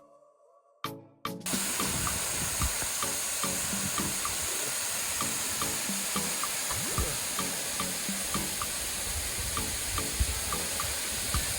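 Steady rush of flowing water that starts abruptly after about a second and a half of near silence, with background music and its regular beat underneath.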